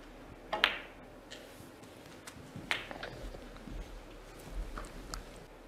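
Snooker balls clicking on the table during a break. A sharp double click comes about half a second in, as the cue strikes the cue ball and it hits an object ball. Another clear click follows near three seconds, then a few faint ticks, over quiet hall ambience.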